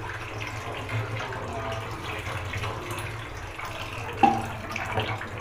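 Cold water poured from a bottle, splashing onto fresh chhena curds in a cloth-lined strainer over a metal sink, over a low steady hum. A single sharp knock about four seconds in.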